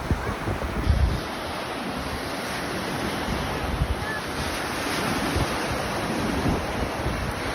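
Ocean surf washing ashore, with wind buffeting the microphone in uneven low rumbles.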